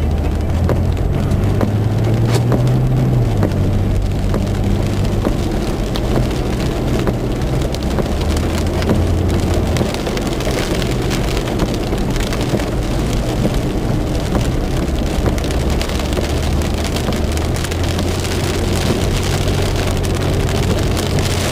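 Rain pattering on a vehicle's roof and windshield as it drives, with the engine running low underneath; the engine note rises briefly a few seconds in.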